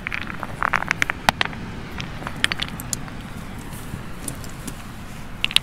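Stones and fossils clicking and clacking together as a hand handles them on a rock, a scatter of short sharp clicks, most of them in the first three seconds and again near the end, over a steady background rush.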